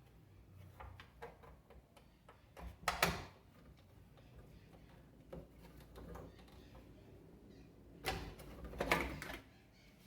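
Hand tools and metal parts knocking and clicking while a washing machine's underside is taken apart to remove the transmission, with two louder clattering bursts, about three seconds in and again near the end.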